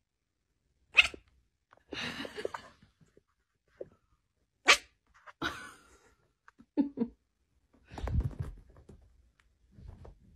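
A kitten barking like a dog: short, sharp, sneeze-like yips in a string of separate bursts, the two loudest about a second in and just before five seconds in.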